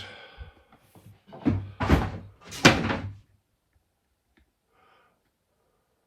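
Loose back panel of a flat-pack kitchen wall cabinet rattling and banging in its grooves, three knocks in just over a second, the last the loudest. The panel is not yet held by its retaining clips.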